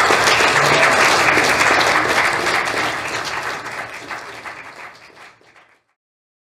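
Audience applauding: dense clapping that fades away from about three seconds in and is gone by about six seconds.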